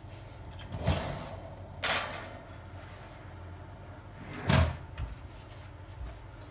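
Built-in wall oven door opened with a thunk, a scraping clatter as the baking pan goes onto the wire rack, then the door shut with a louder thud about four and a half seconds in, followed by a small click.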